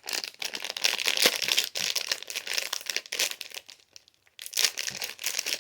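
Toy packaging crinkling and rustling in the hands as the next fidget toy is taken out, with a brief pause about four seconds in.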